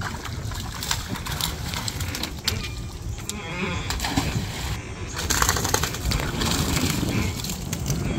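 Live fish splashing into the seawater pond as they are tossed from a long-handled landing net, several splashes over a steady low rumble.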